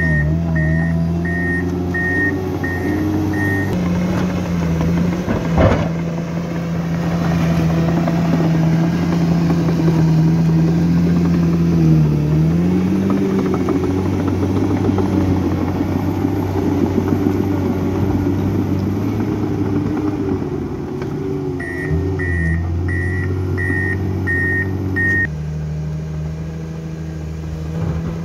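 Komatsu D61 crawler dozer's diesel engine running under load while it cuts and pushes soil, its note dipping briefly about halfway through as it lugs. The machine's warning alarm beeps steadily at the start and again near the end, and one sharp metallic knock comes about six seconds in.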